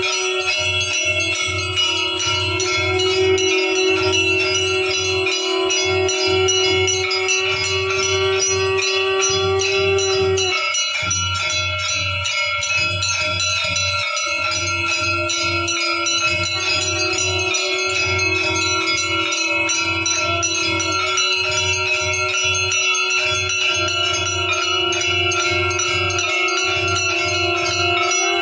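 Hindu temple aarti bells ringing rapidly and without pause, over a steady low beat and a long held tone that drops out for a few seconds about eleven seconds in.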